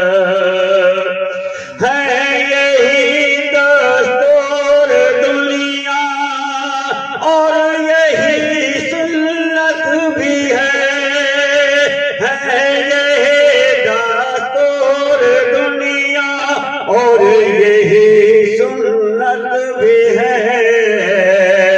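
A man singing an Islamic nazm into a microphone, drawing out long, wavering notes with melodic ornaments.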